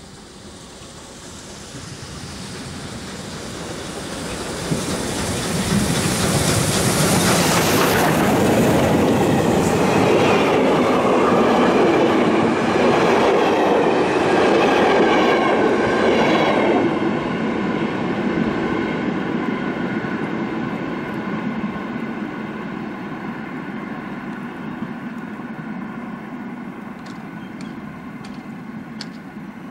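Steam train hauled by a class 52 2-10-0 locomotive passing at speed. Its rumble builds as it approaches and is loudest for about ten seconds as the locomotive and coaches go by, wheels clicking over the rail joints. It then fades as the train moves away.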